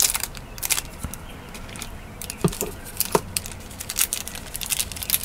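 Small plastic bag crinkling as it is handled, with glass beads clicking against each other inside it and a few brief ringing ticks.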